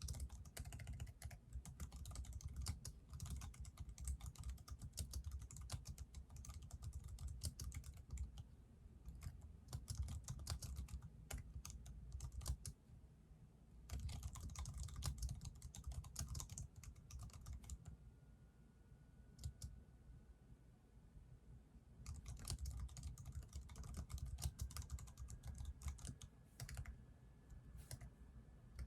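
Typing on a computer keyboard in quick runs of keystrokes, with a short pause about halfway through and a longer lull a little later before the typing picks up again.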